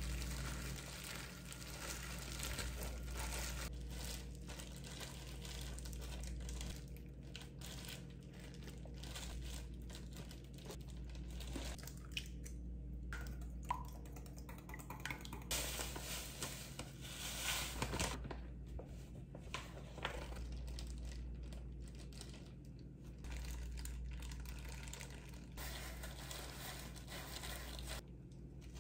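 Faint food-prep sounds while making croquettes: mashed filling being worked and shaped by hand, egg being beaten in a glass bowl and disposable plastic gloves crinkling, with a few sharp clinks in the middle.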